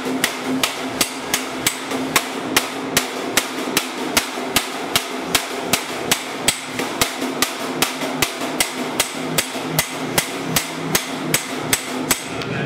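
Small hammer striking the edge of a galvanized sheet-steel tray in a steady run of sharp metallic blows, about two to three a second. The blows stop near the end.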